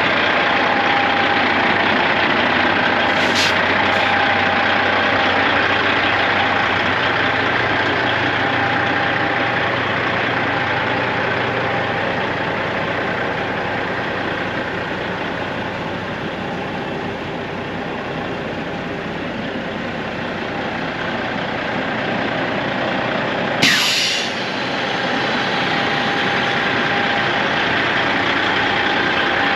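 1996 Volvo semi truck's diesel engine idling steadily. A short hiss of air comes a few seconds in. About three-quarters of the way through, a sudden loud burst of air is released from the truck's air system.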